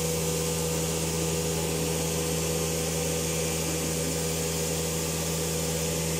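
Old SCM Group CNC woodworking machine running: a steady hum with a constant hiss, holding one pitch.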